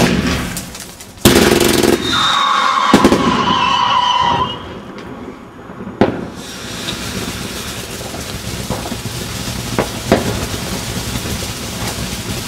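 Fireworks: a sharp bang at the start and another loud report about a second in, then whistling tones for about two seconds with one whistle falling in pitch. A further bang about six seconds in, then ground fountains hissing steadily with scattered crackles.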